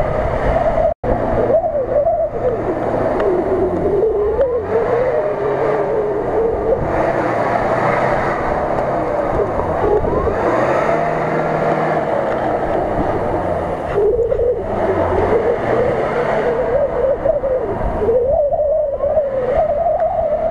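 Mitsubishi L200 pickup's engine revving under load as it churns through deep mud ruts, its note rising and falling again and again. The sound cuts out completely for an instant about a second in.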